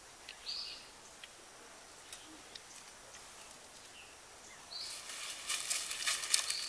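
Outdoor ambience with a few short high bird chirps. About two-thirds of the way in, a louder, dense close crackling of rapid clicks starts and keeps going.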